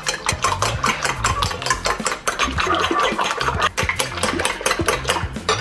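Raw eggs being whisked by hand with a metal fork in a ceramic bowl: fast, steady clicking of the fork against the bowl, many strokes a second.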